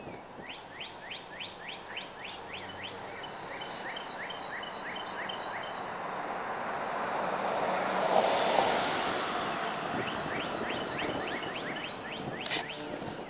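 A songbird repeats quick down-slurred chirps, several a second, for the first few seconds and again near the end. In between, a vehicle passes on the street, the rush swelling to its loudest a little past the middle and then fading.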